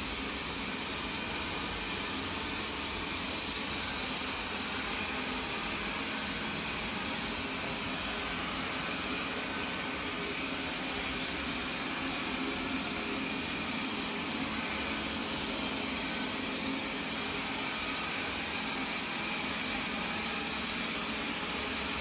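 Viomi V2 Pro robot vacuum running: a steady, even whir with a faint high tone over it.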